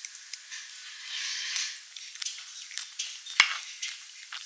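Close-miked eating sounds of a spoonful of ice cream taken into the mouth. Then a metal spoon scrapes and clicks against a bamboo tray while scooping ice cream, with one sharp knock about three and a half seconds in.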